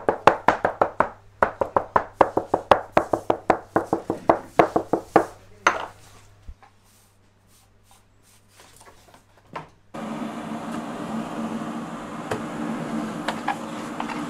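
A thin metal pick rapidly jabbing holes into rounds of erbane dough on a cloth-covered wooden board, a quick run of even taps at about five or six a second, stopping briefly once before trailing off into a few scattered taps. About ten seconds in, a steady rushing noise with a low hum sets in abruptly.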